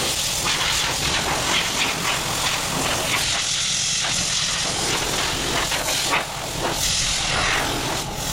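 Sandpaper being worked over a steel car bonnet to block down the guide coat, a steady scratchy hiss that swells and eases with the strokes.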